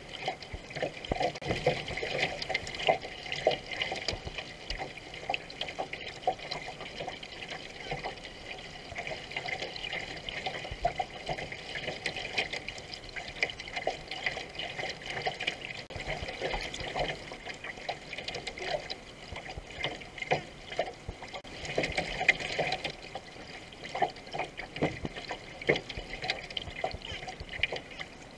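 Water rushing and gurgling along the hull of a racing canoe under way, with the uneven splash of paddle strokes.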